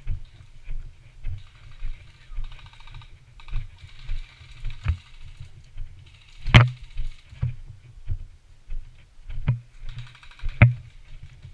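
Rapid clicking bursts of airsoft guns firing on automatic, with the wearer's footsteps thudding about twice a second and one sharp, louder crack about halfway through.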